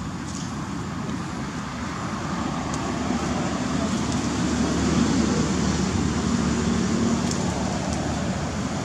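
Steady rumble and hiss of road traffic, swelling gradually in the first half and then holding.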